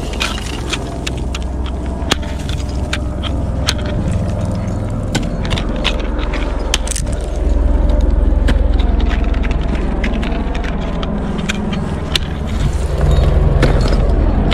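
Wind rumbling on a helmet camera's microphone, louder about halfway through and again near the end, with frequent sharp ticks and scrapes of an ice axe and crampons working iced snow and clinks of metal climbing gear.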